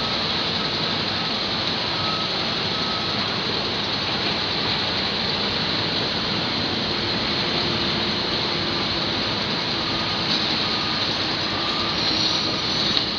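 Cat 320DL hydraulic excavator working: a steady din of its diesel engine and hydraulics, with faint short high beeps coming and going.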